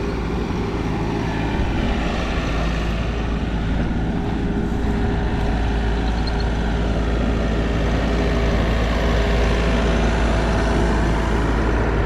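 Heavy equipment engine running steadily, a constant low drone with a steady hum over it.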